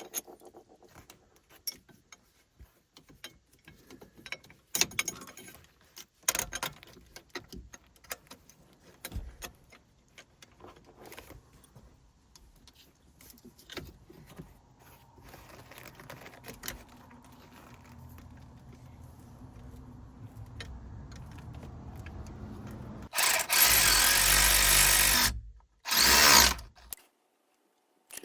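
Hand tools and bolts clinking against metal while a compressor is being bolted to its bracket. Near the end a power tool runs in two bursts, about two seconds and then about one, driving the mounting bolts in.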